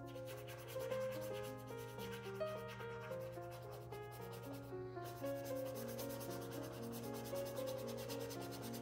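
Small paintbrush rubbing and scratching acrylic paint onto a stretched canvas, under soft background music of held melodic notes and a steady low hum.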